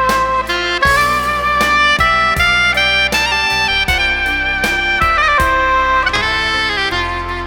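Saxophone playing a slow, sustained melody, note by note, over a backing track with a steady beat.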